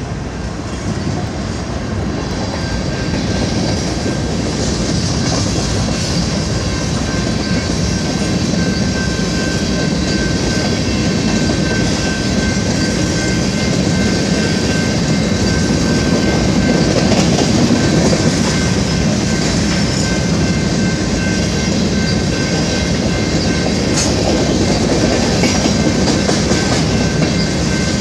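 BNSF covered hopper cars of a grain train rolling past, with a steady rumble and clatter of wheels on the rails and a faint steady high-pitched ring.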